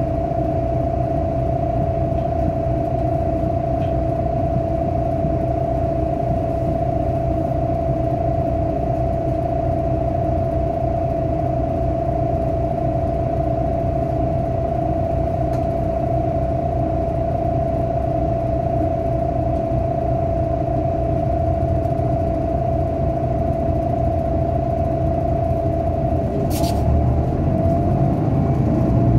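Bus engine heard from inside the cabin while the bus stands: a steady low rumble with a constant high whine over it. Near the end there is a click, and the engine note rises as the bus pulls away.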